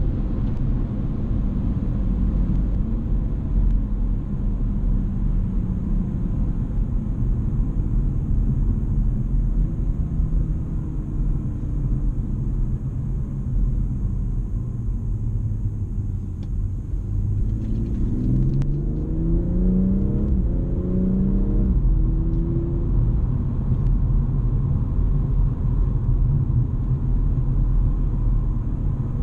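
BMW M240i's turbocharged straight-six heard from inside the cabin, cruising over a steady low road and tyre rumble. About halfway through, the engine note rises under acceleration, breaks briefly at an upshift, climbs again, then drops at a second shift and settles back to an even cruise.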